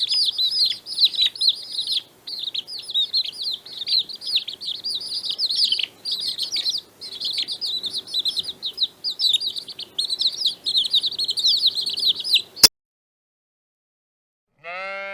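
Many small birds chirping at once, a dense, continuous chatter of short high chirps that cuts off with a click after about twelve and a half seconds. After a brief silence, a sheep's bleat begins at the very end.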